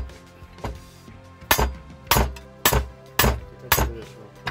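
Hand hammer striking a steel drift against a metal splitter plate, about seven sharp metallic blows roughly two a second, the first one lighter. The blows are driving apart the crankcase halves of a Jawa 20 moped engine, which are coming apart only slowly.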